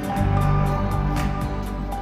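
Background music: sustained tones over a regular beat of light percussion.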